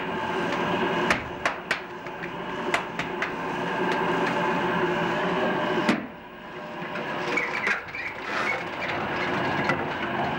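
Steady hum of pottery-workshop machinery, recorded on an old tape, with a few sharp clicks in the first three seconds. About six seconds in the sound breaks off with a click and comes back quieter and rougher, then slowly grows louder.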